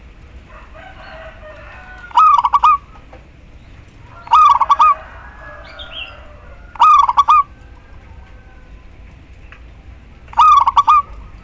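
Female zebra dove (perkutut) calling: four short bursts of rapid, pulsed cooing notes, a couple of seconds apart.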